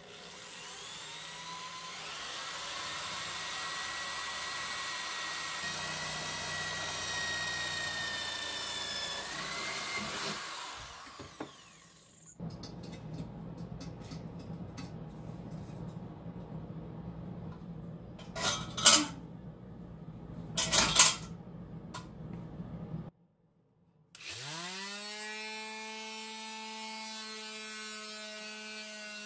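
Power tools working metal in several short runs: a motor whines up to speed and runs, then a rougher cutting noise with two loud bursts partway through, then after a brief silence another motor spins up and runs steadily.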